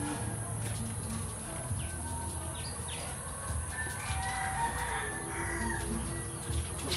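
Animal calls: short chirping calls throughout, with a longer, fuller call about four seconds in.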